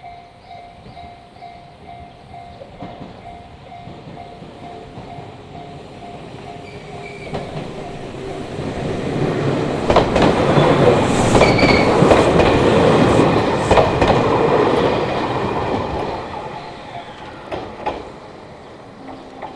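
A Japanese level-crossing warning bell sounds at about two pulses a second. A Fukushima Kōtsū electric train then passes, growing loud about eight seconds in with its wheels clacking over the rail joints, and fades away after about sixteen seconds.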